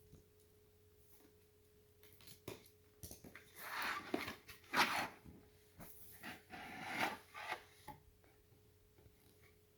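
A cardboard product box being opened by hand: a few clicks, then bursts of scraping and rustling packaging between about three and eight seconds in, over a faint steady hum.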